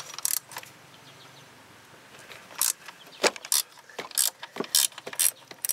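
A 13 mm ratcheting wrench clicking in a run of separate strokes as it loosens a bolt holding the serpentine belt tension on a Jeep 4.0L engine. A couple of clicks come right at the start, then a steady series of sharp ratchet clicks sets in about two and a half seconds in.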